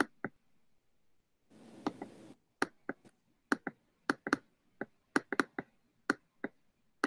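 Computer mouse clicking repeatedly at an uneven pace, some clicks in quick pairs like double-clicks, with a short hiss about two seconds in.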